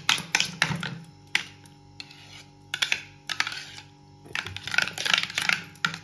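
A steel spoon beating thick drained curd in a small steel bowl: irregular clicks and scrapes of the spoon against the bowl, busier in the second half.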